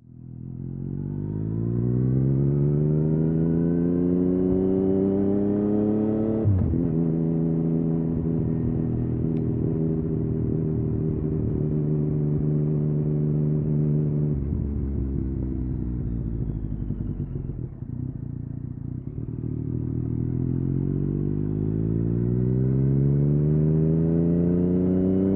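Yamaha MT-09 inline-three motorcycle engine through an Akrapovic exhaust, revving up as the bike accelerates. Its pitch drops sharply about six and a half seconds in as it shifts up a gear, then holds steady. It falls away as the bike slows from about fourteen seconds, then climbs again near the end.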